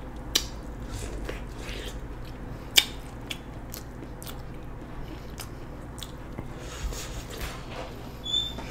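Biting and chewing corn on the cob: sharp, crunchy clicks of kernels being bitten off the cob at irregular moments, the loudest about three seconds in.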